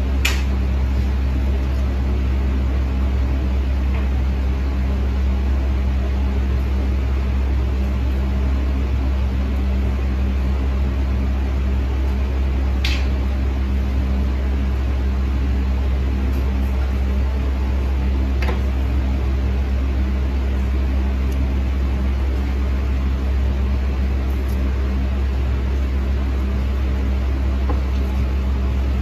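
Steady low hum of a small electric motor running, with a few faint clicks of a metal tool against the nail.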